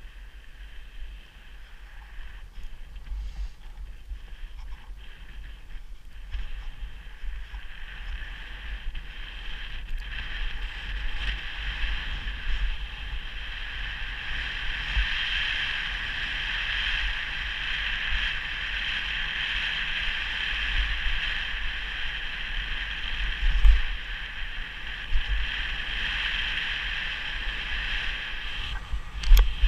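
Wind buffeting the microphone and the hiss of skis running through snow, both building as the skier picks up speed on a downhill run. A sharp knock or two near the end.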